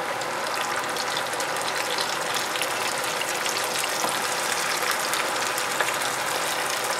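Sliced onions sizzling in hot oil in a frying pan, a steady crackling hiss, while onion paste is scraped in off a ceramic plate with a wooden spatula.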